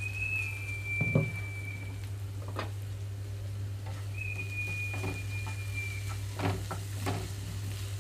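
Wooden spatula stirring diced snake gourd in a nonstick frying pan, with scattered knocks and scrapes against the pan and light sizzling, over a steady low hum. Twice, a high steady whistle-like tone sounds for about two seconds, once at the start and again about four seconds in.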